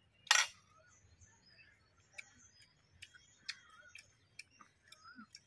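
Eating by hand: scattered soft clicks and smacks of a man eating rice and curry with his fingers, after one brief, sharp, louder noise just after the start.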